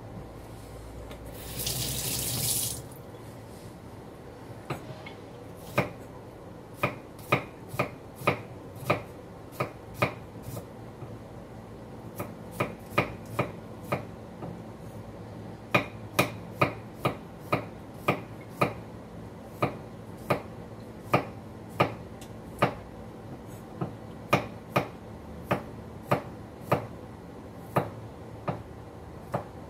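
Tap water running briefly about a second in, then a knife chopping on a wooden cutting board: sharp knocks, roughly two a second, with short pauses.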